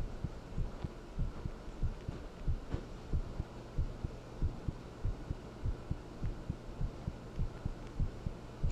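Heartbeat: low thumps repeating in a steady, even rhythm over a faint steady low hum.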